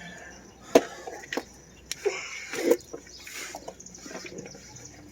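Liquid splashing and dripping in short spells, with a few sharp clicks and knocks.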